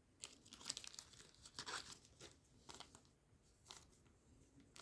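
Faint rustling, crinkling and light ticks of Japanese trading cards from an opened booster pack being handled and shuffled through.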